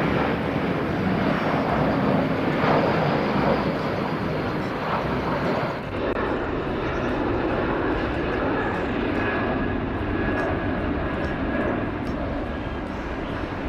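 Steady airplane engine noise, with no clear rise or fall; its hiss above about 8 kHz drops away about six seconds in.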